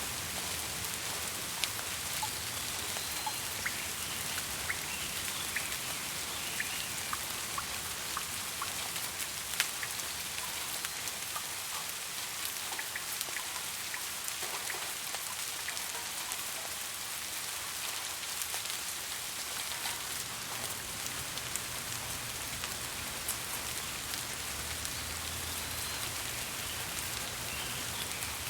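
Steady rain falling, an even hiss with individual raindrops ticking sharply now and then.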